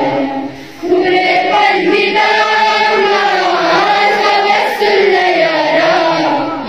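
Background music: sung vocals with a chant-like, choral sound and long held notes, pausing briefly near the start.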